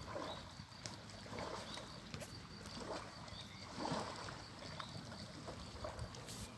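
Wind-driven lake waves splashing and lapping against the shore, in a few irregular swells, with wind buffeting the microphone.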